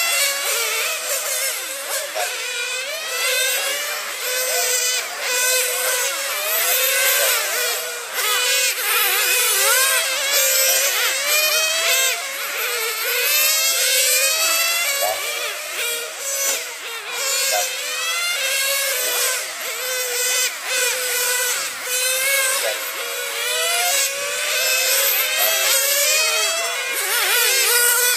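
Several radio-controlled race cars' small high-revving engines screaming as they lap, their pitch rising and falling again and again as they brake and accelerate through the corners, the sounds of several cars overlapping.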